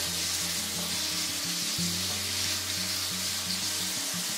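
Shredded beef sizzling in hot oil in a wok as it is stir-fried with chopsticks, a steady hiss.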